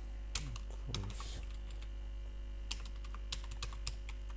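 Computer keyboard being typed on: keystrokes in short irregular runs, with a pause of about a second midway, over a steady low hum.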